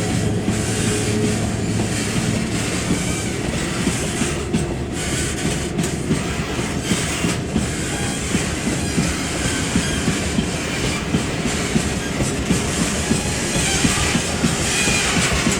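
Model freight train hauled by ED71 electric locomotives running along the track: a steady rumble with rapid, continuous clicking of wheels over rail joints.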